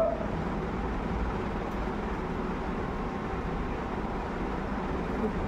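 Steady fan noise in a small workshop: an even whooshing hiss with a low hum beneath it, unchanging throughout.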